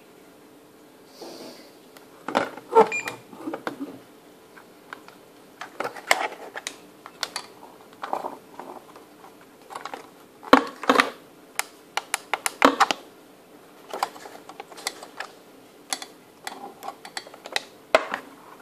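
Handling noise: irregular clusters of clicks, taps and knocks as the plastic case of a radio-control transmitter and its metal antenna bracket and rods are picked up and set down on a glass tabletop, over a faint steady hum.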